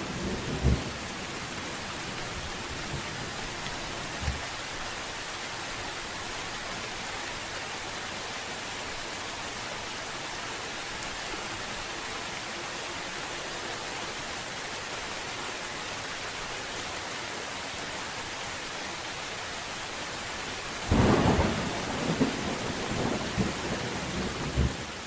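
Steady rain falling, with a loud burst of thunder near the end that crackles irregularly for a few seconds.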